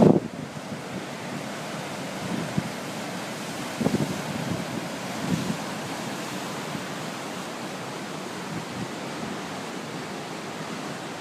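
Heavy Pacific surf breaking over a rocky shore, a steady wash of churning whitewater. Wind buffets the microphone in a few short gusts, about 4 and 5 seconds in.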